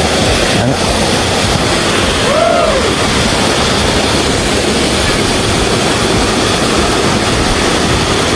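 Loud, steady rushing of a fast stream or rapids, with one short rise-and-fall tone about two and a half seconds in.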